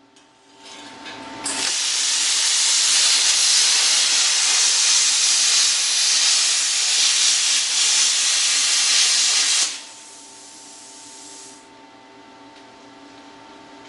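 Plasma cutter torch cutting steel, a loud steady hiss of the arc and air jet that builds up about a second in and holds for about eight seconds. It then cuts off suddenly, leaving a softer air hiss for about two more seconds over a faint steady machine hum.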